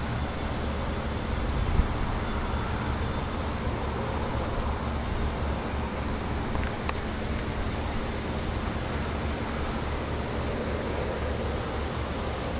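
Steady low outdoor background rumble, with a short thump about two seconds in and a sharp click about seven seconds in.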